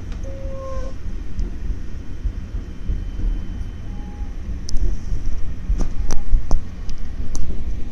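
Passenger train running, a steady low rumble of the car with a series of sharp clicks and knocks starting about five seconds in.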